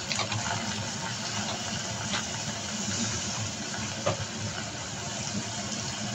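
Steady hiss of a pot of seasoned chicken heating on the stove as it starts to steam, with a few faint light clicks.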